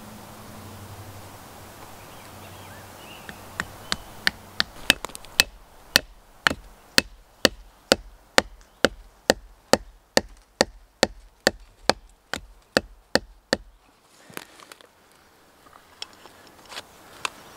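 A wooden spile being driven into a birch trunk with the head of a small axe for sap tapping: a run of sharp wooden knocks, about two a second, starting a few seconds in and stopping about two-thirds of the way through, followed by a few faint clicks.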